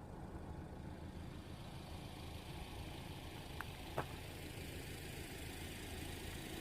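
Steady low hum of an idling engine, with two short sharp clicks about three and a half and four seconds in.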